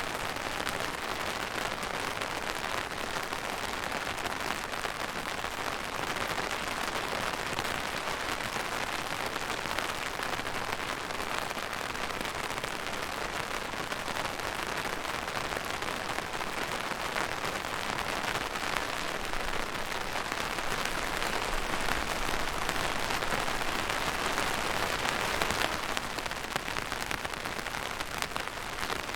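Steady rain falling on a surface, a dense even patter of drops, easing slightly near the end.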